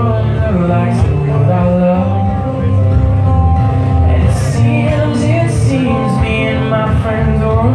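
Live song: a man singing to his own strummed acoustic guitar, amplified through a PA.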